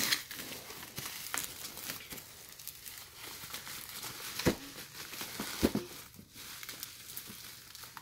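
Bubble wrap crinkling and rustling as a child's hands pull it off a toy box, with many small crackles and two louder thumps about halfway through.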